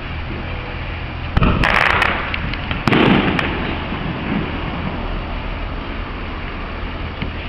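Two fireworks shells bursting about a second and a half apart, each a sudden bang followed by crackling and a fading rumble, over a steady low background rumble.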